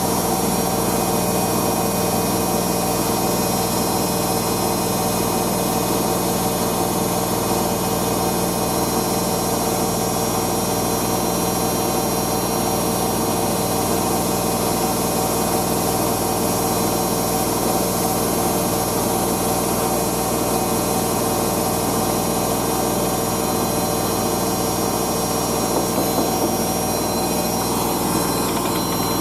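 Hoover DYN9144D3X washing machine spinning a load of towels at 1200 rpm on its final spin: a steady motor whine over the drum's hum.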